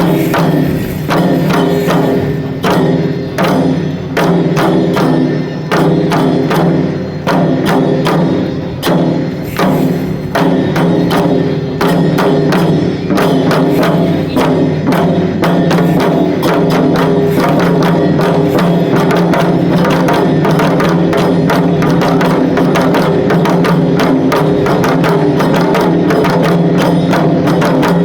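Shishimai lion dance accompaniment of loud festival drumming: fast, rhythmic drum strokes that pick up into a near-continuous roll about halfway through.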